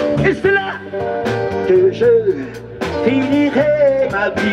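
Live band music: electric guitars and a drum kit playing, with a lead line of sliding notes over the steady chords.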